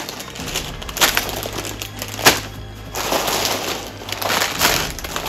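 Plastic bags full of building bricks crinkling and rattling as they are lifted out of a cardboard box and dropped onto a table, with several sharp clacks, the loudest about a second in and just past two seconds, over background music.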